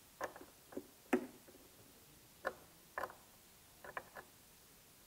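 About ten light, irregular clicks and taps of small hard parts being handled, the loudest about a second in: the spacer shims being worked off the pedal hinge bracket of an INMOTION V3 electric unicycle.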